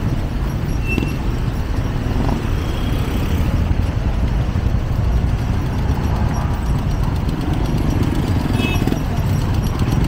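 Steady street traffic noise: a continuous low rumble of passing vehicles.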